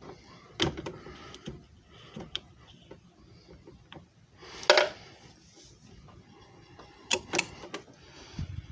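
A series of sharp clicks and knocks, as from handling hard plastic parts. The loudest comes about halfway through, and a quick pair of clicks follows near the end.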